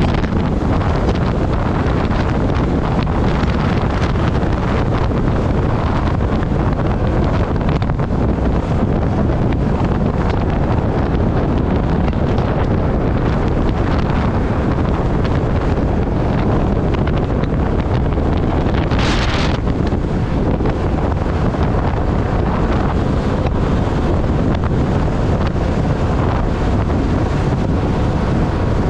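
Steady, loud wind rushing over the microphone of a 125 cc scooter moving at highway speed. Partway through there is a brief, brighter hiss.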